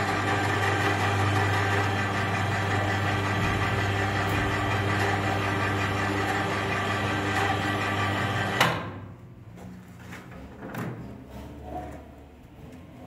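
Tsepon Master profile pipe bender's electric drive motor and chain-driven rollers running with a steady hum while rolling square steel tube, then stopping with a sharp click about two-thirds of the way in. A few light metal knocks follow as the pressure screw is handled.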